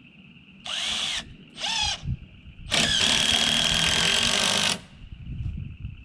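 A power drill: two short trigger pulses with the motor winding up and down, then a steady run of about two seconds.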